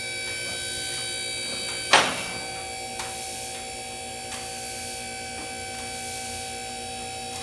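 Electric motor of a hydraulic car lift humming steadily as it raises the car, with one loud clank about two seconds in and a few light clicks after.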